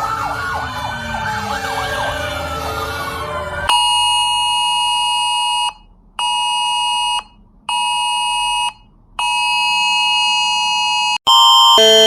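Several emergency warning sirens wailing together, their pitches rising and falling and overlapping. About four seconds in this cuts to an electronic alert tone sounding in four steady blasts, long, short, short, long, and near the end to another alert tone alternating between two pitches.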